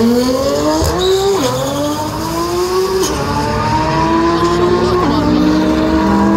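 A single-turbo Ford Mustang 5.0 V8 and a Nissan GT-R R35 twin-turbo V6 accelerating flat out side by side. The engine note climbs and then drops back at each upshift, about a second in, at three seconds and at five seconds.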